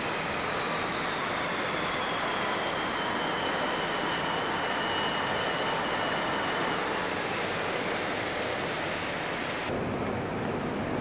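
Steady running noise of a moving train heard from on board, with a faint whine that slides slowly down in pitch over the first several seconds. The sound changes abruptly near the end.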